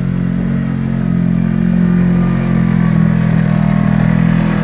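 Side-by-side UTV engine running at low, fairly steady revs as the machine crawls up a steep slope over leaves and rocks.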